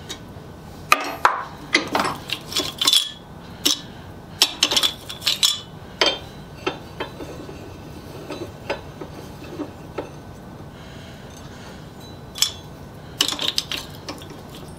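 Steel parts and hand tools clinking and knocking against each other in irregular clusters of sharp metallic taps as the new vise handle is fitted.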